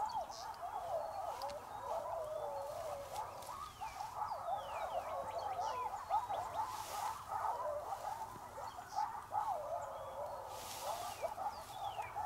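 A pack of coyotes howling and yipping together, many wavering voices overlapping, with a short lull about four seconds in.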